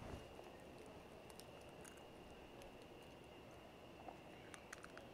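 Near silence with a few faint clicks of an eggshell being cracked open and pulled apart by hand as the raw egg drops onto a steel deck, over a faint steady high-pitched tone.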